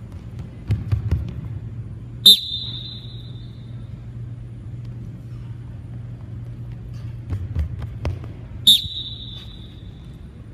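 Sneakers on a hardwood gym floor: a few quick running footfalls, then one sharp, high squeak as the runner plants hard to stop. This happens twice, about two seconds in and again near the end, over a steady low hum.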